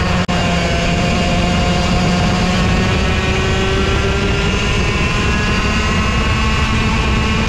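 Racing kart engine running hard at speed, heard from onboard, its note gliding gently up and down. The sound drops out for an instant just after the start.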